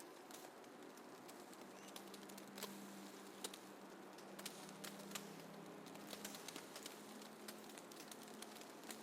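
Faint snowfall ambience: a soft steady hiss with scattered light ticks and crackles. A faint low hum comes in about two seconds in and fades out around six seconds.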